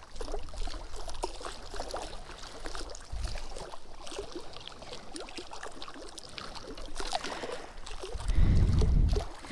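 Hands unhooking a small bream: faint clicks and rustles of fingers, hook and fish, over water lapping at the shore, with a brief low rumble on the microphone near the end.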